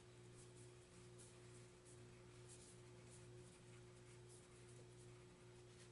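Near silence: a steady low electrical hum with faint, light ticks and rustles of playing cards being sorted and laid down.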